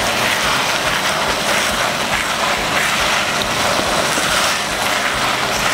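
Blended spice paste with chillies sizzling steadily in a wok, an even hiss without a break.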